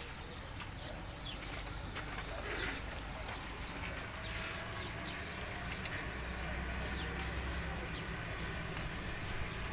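Diesel car engine idling steadily, with small birds chirping over it.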